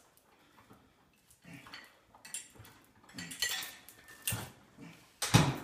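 Weights and chains hanging from a homemade overhead press bar clinking and rattling as it is pressed, a series of irregular metallic clanks, the loudest about five seconds in.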